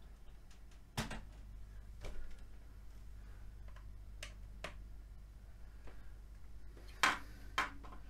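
Scattered clicks and knocks of a charging cable and plug being handled and pushed into the socket of an opened battery speaker. Two sharp clicks about a second before the end are the loudest.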